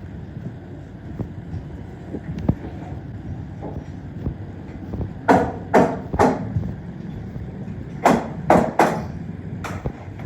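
Loud knocks or bangs on a wooden frame, three in quick succession about halfway through and three more soon after, then a single one near the end, over a steady low rumble.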